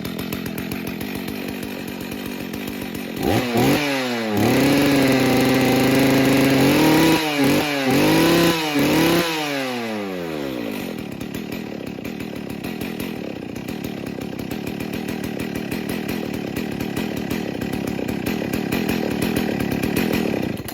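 Husqvarna 61 Rancher chainsaw's two-stroke engine idling, revved up to high speed about three seconds in and held there, blipped three more times, then falling back to a steady idle that is a little low, shortly after a cold start.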